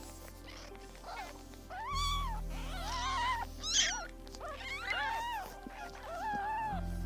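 Young kittens mewing: about five high calls that rise and fall, each about half a second long, some coming close together or overlapping.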